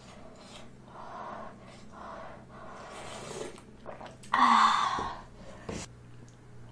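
Mouth sounds of chewing a spoonful of ramen and kimchi dumpling, coming about once a second. About four seconds in there is a loud sharp intake of breath, and near the end a light click.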